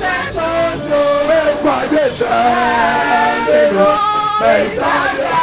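Voices singing a worship song together, with held notes that slide from one pitch to the next.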